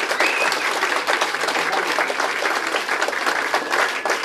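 Crowd applauding steadily: many hands clapping together.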